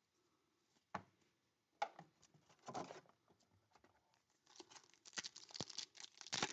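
A few light knocks and a brief rustle as a trading-card pack is lifted out of a cardboard box. Then, from about halfway through, the pack's foil wrapper crinkles and tears as it is pulled open. This pack's seam is heavily glued and hard to open.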